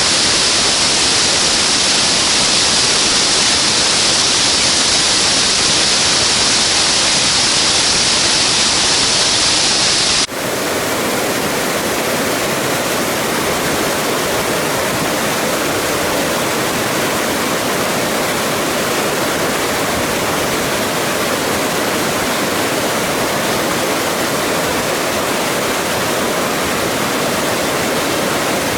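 Steady rush of a mountain waterfall. About ten seconds in the sound changes abruptly to a lower, fuller rush.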